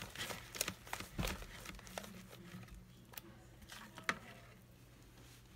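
A utensil stirring and scraping pink slime in a plastic bowl: irregular clicks and scrapes, busiest in the first couple of seconds, with one sharp click about four seconds in, then dying down.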